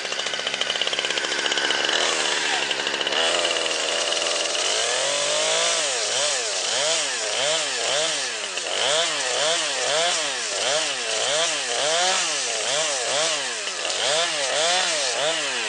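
Chainsaw engine running fast, dropping to idle about three seconds in, then revved up and down over and over, about one and a half times a second, to the end.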